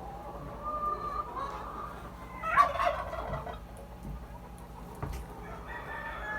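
Chickens calling in a coop: a rooster crows, loudest about two and a half seconds in, among hens' clucks and calls.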